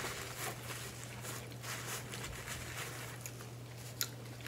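Close-up eating sounds: soft, irregular mouth clicks and crackles of chewing, with one sharper click near the end, over a steady low hum.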